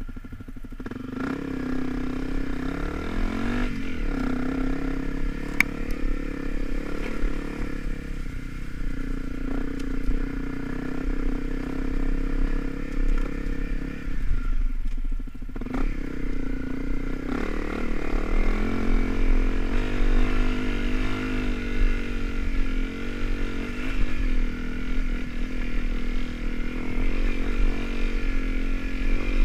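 Honda CRF250L's single-cylinder four-stroke engine running under load on a dirt trail, the throttle opening and closing. It eases off briefly about four seconds in and longer around the middle, then revs back up.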